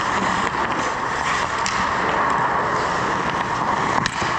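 Ice hockey play: a steady hiss of skates scraping the ice with scattered clacks of sticks and puck, the sharpest about four seconds in.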